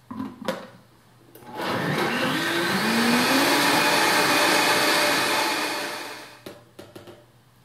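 Vitamix blender motor spinning up with a rising whine about a second and a half in, running steadily for about four seconds as it blends a milkshake of almond milk, blueberries, mint and ice cream, then winding down. A few short knocks come just before it starts and just after it stops.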